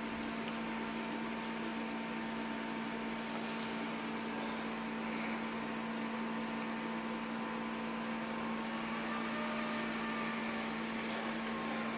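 Steady electrical hum with a haze of hiss, and a few faint clicks.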